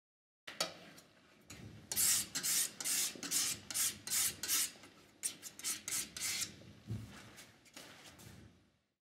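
Rhythmic scraping and rubbing strokes of a painting tool working oil paint on a palette, about two to three strokes a second, easing off and growing fainter near the end.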